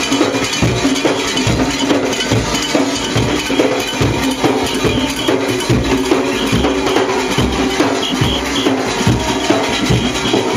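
Junkanoo band drumming: several large goatskin drums beaten by hand in a fast, steady beat, with other hand percussion clattering over it.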